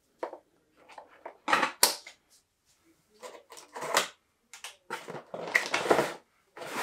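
Hands handling a 1:10 scale RC drift car chassis and its cardboard packing tray: an irregular run of short clicks, knocks and cardboard scrapes, a little busier near the end as the tray is shifted on the bench.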